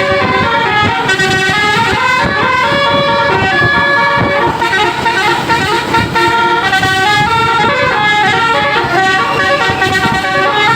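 A bus's telolet basuri musical air horn plays a quick tune of short, stepped horn notes, with several tones sounding together.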